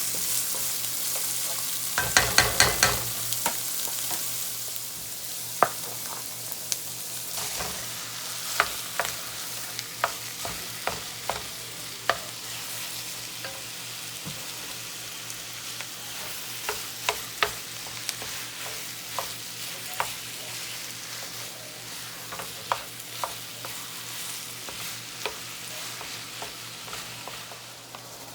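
Food sizzling in a hot frying pan as it is stirred, with a spatula tapping and scraping against the pan: a quick run of taps about two seconds in, then scattered single taps. The sizzle slowly dies down.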